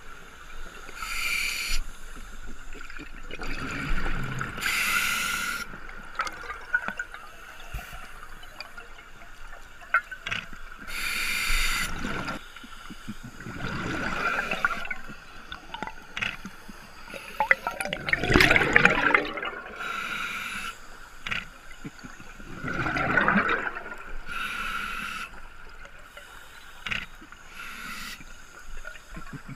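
Scuba breathing underwater through a regulator: hissing breaths and gurgling rushes of exhaust bubbles, coming every few seconds.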